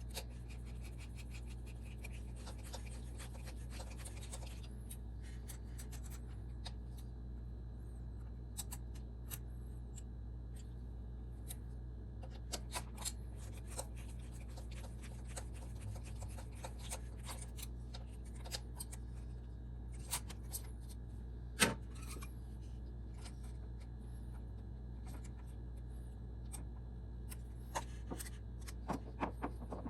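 Scattered light clicks, rubbing and scraping of hand work with tools and metal parts on an engine, with one sharper knock about two-thirds of the way through, over a steady low hum.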